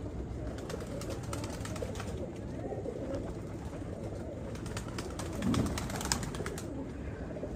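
Domestic pigeons cooing, a low murmur with a fuller coo about five and a half seconds in. Scattered light clicks and rustles run through it.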